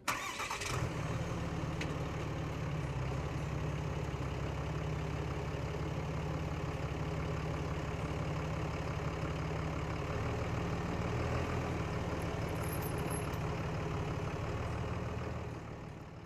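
A four-wheel-drive vehicle's engine running steadily at low speed while the vehicle is driven a short way forward to roll the tire chains onto the tire. It starts abruptly and fades out near the end.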